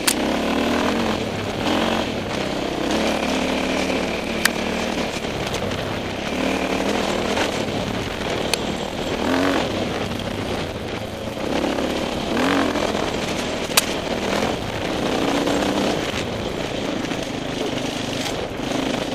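KTM 525 EXC four-stroke single-cylinder dirt-bike engine heard from on board, its revs rising and falling again and again as it is ridden along a rough trail. A few sharp clicks sound over it.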